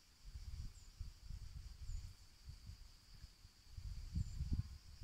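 Steady high-pitched chirring of crickets, with three brief, high, falling chirps from barn swallows flying overhead. Underneath is an irregular low rumble on the phone's microphone.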